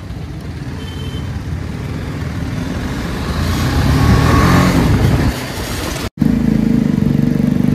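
Motorcycle engine and road noise, building up to a peak about four to five seconds in. After a brief dropout, a motorcycle engine runs steadily and loudly with a low, even note.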